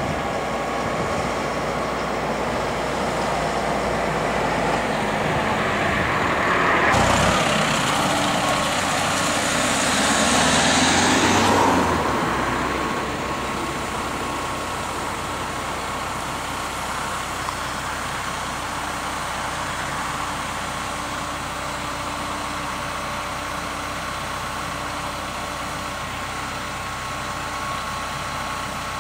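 A lorry drives past close by, swelling and then fading between about seven and twelve seconds in. After that a tractor carrying a folded hedge-cutting arm mower runs steadily as it drives along the road.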